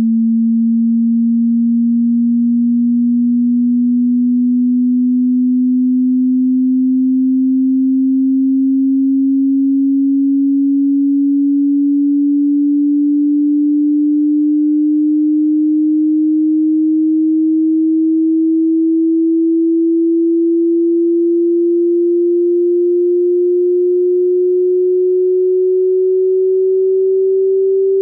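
Pure sine test tone for a hearing test, gliding slowly and steadily upward in pitch as a single low tone, at an even level throughout.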